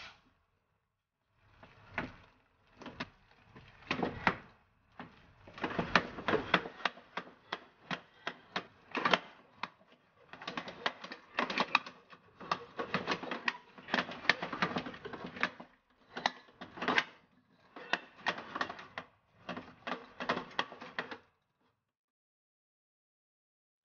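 Wooden spatula beating choux pastry dough in a stainless steel pot, with rapid scraping and knocking against the pot's bottom and sides as the flour is worked into the hot butter and water and the dough comes together into a ball. The stirring stops about two seconds before the end.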